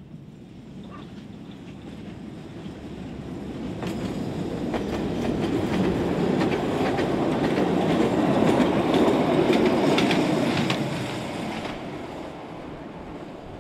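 Metre-gauge heritage diesel train approaching and passing close by. The locomotive's engine rumble rises, then the wheels click over the rail joints as the coaches go past, loudest a little past the middle, and the sound fades as the train draws away.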